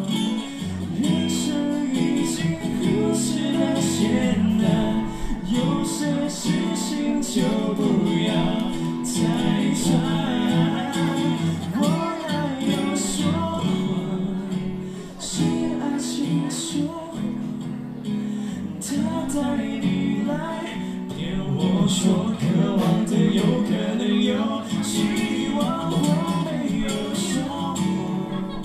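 Live band music: acoustic guitar strumming with singing over it and crisp percussive ticks keeping the beat.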